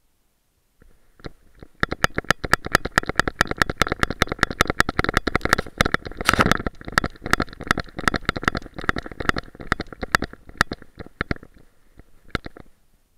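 Action camera's dog-back harness mount knocking and rattling with each stride as a Boston Terrier trots, about five sharp clacks a second, loudest a little past the middle and thinning out near the end.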